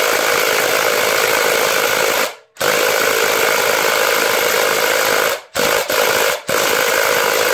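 Earthquake 3/8-inch 20-volt cordless impact wrench hammering on a lug nut torqued to about 130 pounds and failing to break it loose. It runs in a long burst, stops briefly a little over two seconds in, runs again, blips twice and then runs once more.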